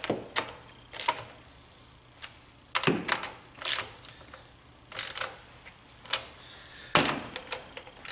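Metal wrench clicking and clinking on the battery terminal bolts as they are tightened down: sharp knocks at uneven intervals, one every second or two.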